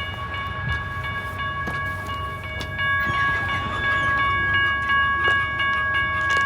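Diesel locomotive's multi-chime air horn sounding one long, steady blast over the low rumble of the train.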